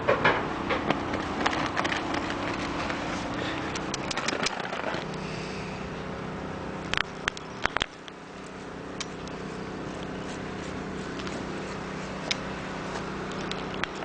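A steady low machine hum, its pitch shifting about five seconds in, under scattered clicks and scrapes from a cat rubbing its face against the camera and nuzzling a potted catnip plant, with a cluster of sharp clicks about seven seconds in.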